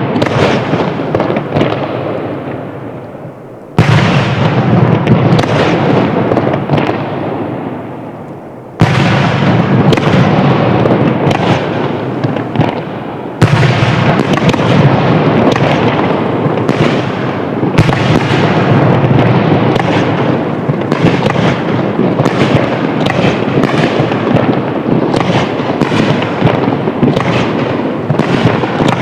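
A fireworks display: shells bursting one after another in a dense run of booms and crackling. Twice the bursts die away and then come back suddenly at full loudness.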